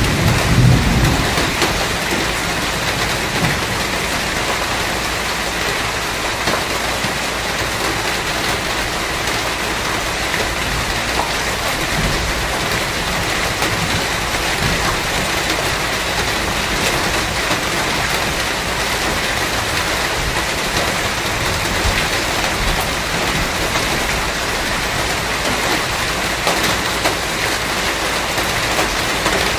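Steady heavy rain falling and splashing on hard ground and leaves, an even hiss of countless drops. A low rumble of thunder dies away in about the first second.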